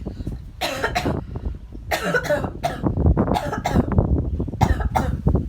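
A person coughing hard about five times in a row: a put-on, staged cough faking a throat problem.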